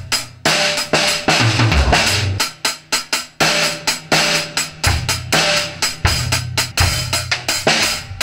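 Drum kit played in a fast, uneven run of strikes: snare and drum hits with cymbal crashes ringing over them, and deeper drum thumps under some stretches.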